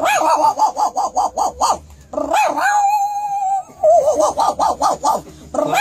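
A man imitating animal calls with his voice: a fast run of short yelping calls, about ten a second, then one long held call, then another fast run.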